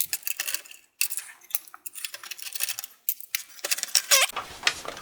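Repeated small metallic clicks and clinks from hands and tools working on a desktop PC tower's steel case while its power supply is being removed.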